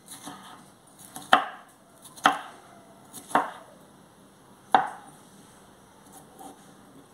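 Kitchen knife cutting red bell pepper on a wooden cutting board: four sharp knocks of the blade hitting the board, unevenly spaced, with a few softer cuts before and after.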